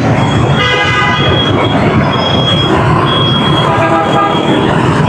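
Heavy rush-hour city traffic: a dense, steady mix of engines and road noise. Pitched horn toots sound about a second in and again around four seconds.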